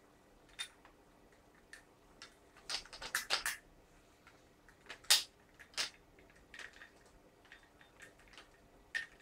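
Clicks and clinks of small metal parts of a gas blowback airsoft rifle being handled and fitted: a quick cluster of several about three seconds in, then single sharper taps near five and six seconds.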